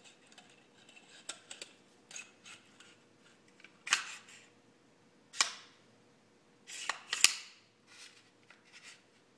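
Metal parts of an STG U9 rifle clicking and snapping together as it is reassembled by hand, with sliding and light clicks between sharper clacks. The loudest snaps come about four, five and a half, and seven seconds in.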